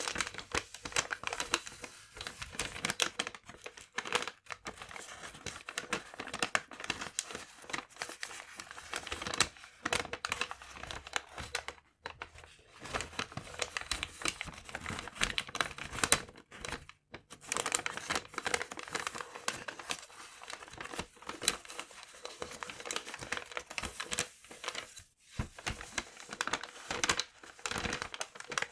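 Paper being crumpled and crinkled by hand, a dense run of crackles broken by a few short pauses.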